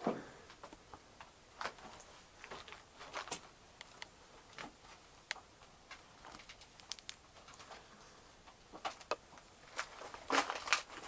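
Footsteps crunching over loose rock and debris underfoot, as irregular clicks and scrapes with a denser flurry of crunching near the end.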